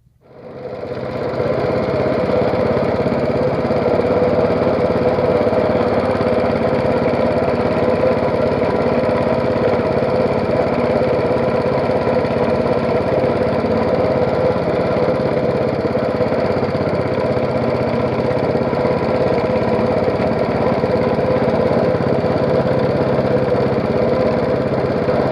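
A small engine starts up and runs steadily at a constant speed, loud and unchanging.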